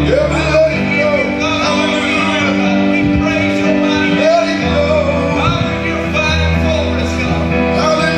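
Live gospel worship music from a band of bass guitar, keyboard and drums, with voices singing over sustained bass notes and held keyboard chords.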